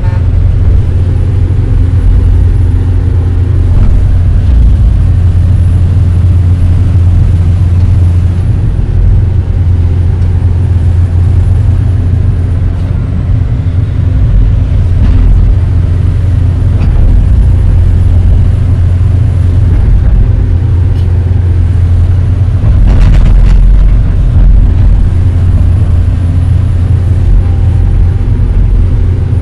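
Hydraulic excavator's diesel engine running steadily and loudly, heard from inside the cab, as the boom and bucket are worked to push material; a few knocks cut through, the loudest about 23 seconds in.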